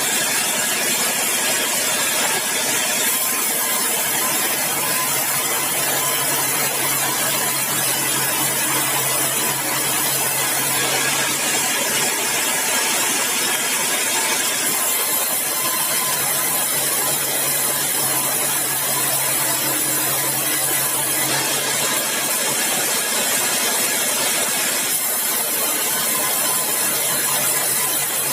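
Sawmill running: the engine-driven circular saw makes a steady, loud mechanical noise with a strong high hiss that shifts every few seconds.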